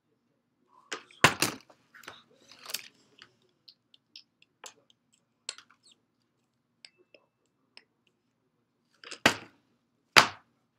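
Plastic water bottle and tracing pad handled on a wooden table: scattered crinkles and taps, with a loud knock about a second in and two more near the end.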